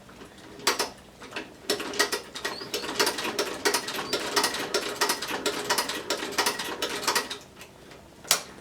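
Heavy-duty sewing machine stitching through leather, its needle and mechanism clicking several times a second. It stops about a second before the end, and one last click follows.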